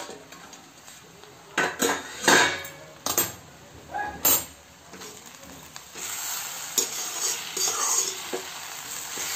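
Metal spatula knocking and clanking against a steel plate lid and the kadai as the lid is lifted off. From about six seconds in, a steady sizzle of the aloo methi frying, with the spatula scraping as it is stirred in the kadai.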